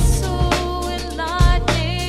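Music: deep beats about a second and a half apart over a sustained bass, with held melodic notes that waver near the end.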